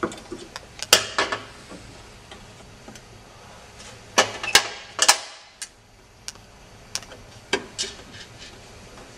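Scattered sharp clicks and knocks of a screwdriver and metal parts as a circuit board is screwed into place inside an instrument, loudest around a second in and again about four to five seconds in.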